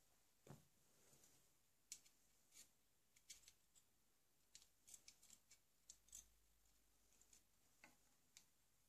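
Faint, scattered small clicks and ticks of a metal caliper being handled and set against the trigger inlet of a wooden rifle stock to measure its depth, thickest around the middle.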